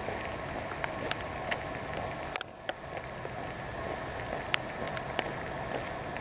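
Steady outdoor background noise with scattered sharp ticks and clicks; the noise dips briefly about two and a half seconds in.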